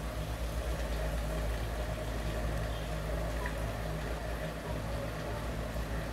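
A steady low mechanical hum, like a motor running, with no speech over it.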